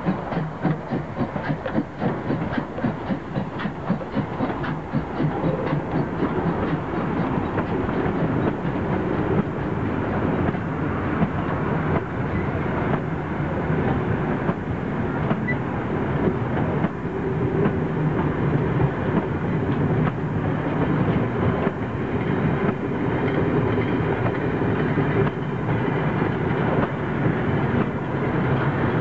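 DRG class 64 2-6-2 steam tank locomotive 64 491 pulling away with its train, the exhaust beating in a quick, even rhythm at first. The beats then fade under the steady rumble and clickety-clack of the passenger coaches rolling past on the track.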